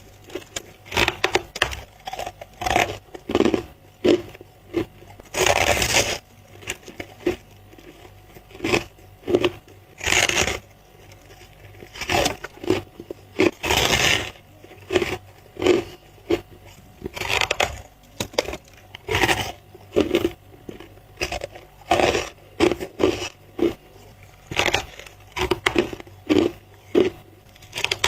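Person biting and chewing freezer-frost ice close to the microphone: a run of short crunches, with a few longer, louder bites about six, ten and fourteen seconds in.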